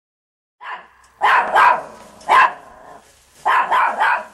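A dog barking in short, sharp barks, starting about half a second in: a single bark, then a pair, one more, and three quick barks near the end.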